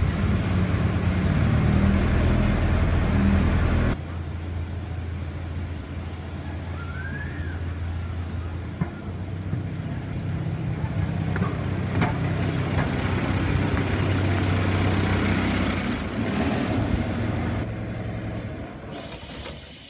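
Kubota 3.3-litre diesel engine of a miniature-railway diesel locomotive running at raised revs in the cab, building air pressure for the brakes. After about four seconds it is heard quieter, running as the locomotive drives slowly out of the shed; a steady hiss starts near the end.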